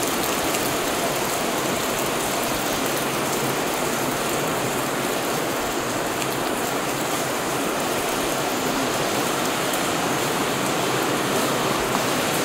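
Heavy rain falling steadily, a constant even hiss of a downpour.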